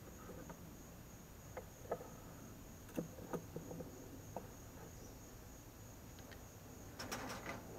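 Scattered light clicks and knocks of PVC pipe and fittings being handled and pushed together, with a denser cluster of handling noise near the end. Under them runs a steady high chirring of insects.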